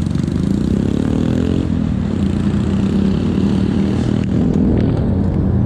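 Yamaha XTZ 250 single-cylinder four-stroke motorcycle engine running, its revs rising from about half a second in, then dropping back to a steady lower note.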